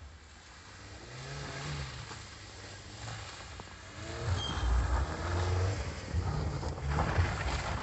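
Kia Sportage SUV engine revving as it drives through deep snow toward the camera, its tyres churning and throwing up snow. It grows louder and is loudest as it passes, from about four seconds in.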